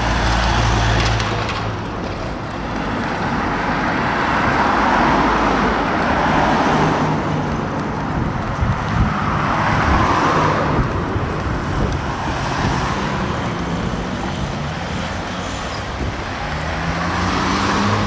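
Road traffic: a few cars passing by one after another, each a swelling and fading rush of tyre and engine noise over a low engine hum.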